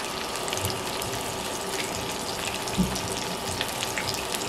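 Salmon fillets sizzling and crackling in hot olive oil in a frying pan, with one dull low thump a little after the middle.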